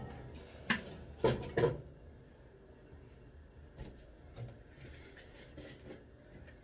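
Kitchen items being handled at the counter: three sharp knocks in quick succession about a second in, then a few fainter clicks and clatters.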